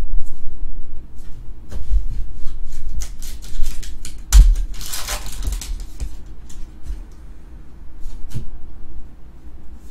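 Trading cards being handled and flicked, giving repeated light clicks and taps. About four and a half seconds in there is a thump, then a second or so of crinkling as a foil booster pack is torn open.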